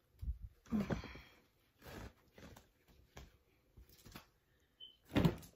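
Rustling of fabric and gift packaging being handled: a series of irregular short swishes and rustles, the loudest about five seconds in.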